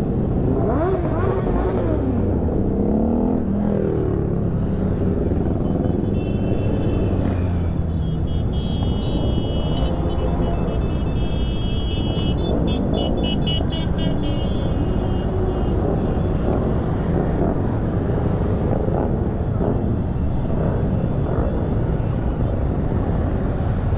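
Many motorcycle engines running together in a mass ride, revving up and down over a steady engine din. A high-pitched pulsing tone joins about eight seconds in and lasts several seconds.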